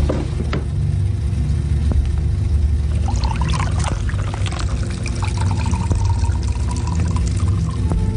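Espresso machine running, its pump humming as coffee trickles into a cup.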